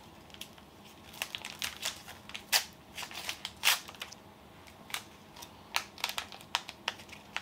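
Crinkling and clicking of plastic toy packaging being handled and opened, an irregular string of small sharp crackles, the loudest about two and a half and three and a half seconds in.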